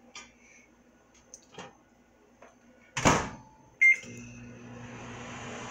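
A loud thud about three seconds in, then a single short keypad beep and a microwave oven starting up, running with a steady hum.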